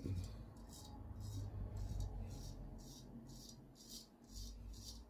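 Freshly honed Filarmonica straight razor scraping through lathered beard stubble in short, quick strokes, about two or three a second.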